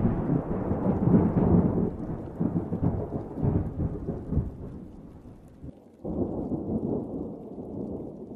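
Thunder sound effect: a loud crash that rolls into a low rumble and slowly fades, then a second roll of thunder about six seconds in.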